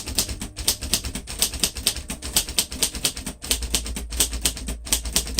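1947 Royal Quiet Deluxe manual typewriter being typed on quickly, a fast, unbroken run of sharp key and typebar strikes, several a second.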